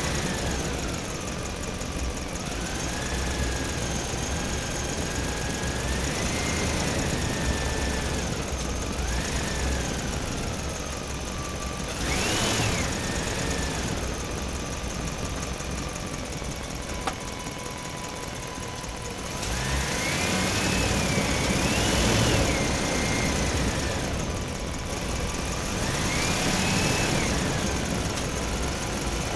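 Electric motor of a toy RC vehicle whining, its pitch rising and falling again and again as it speeds up and slows down, over a steady running noise.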